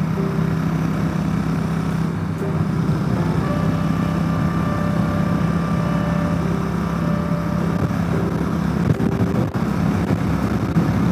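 Motorcycle engine running steadily at highway cruising speed, a constant low drone, with wind rushing over the microphone.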